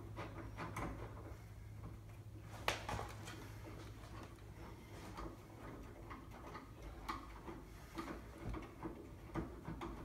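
Faint scattered clicks and taps of a screwdriver and deadbolt hardware being handled at a door, with one sharper click about three seconds in and a few more near the end, over a low steady hum.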